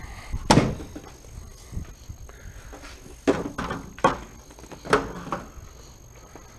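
Recoil starter rope on a Briggs & Stratton small engine on a pressure washer, yanked several times in quick succession. Each yank is a short rasping burst of cranking, and the engine does not catch.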